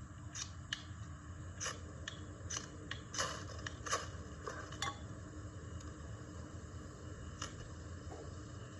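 Ferro rod struck with a striker to throw sparks onto tinder: short sharp scrapes, about eight of them at irregular intervals, most in the first five seconds.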